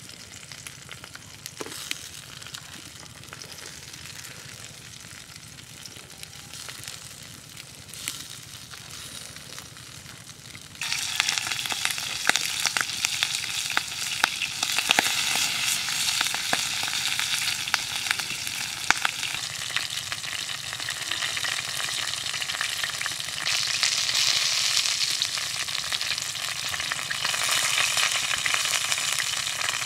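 Chicken feet sizzling in an oily pan over a wood fire, a steady hiss with scattered sharp pops. About eleven seconds in the sizzle suddenly gets much louder and stays loud.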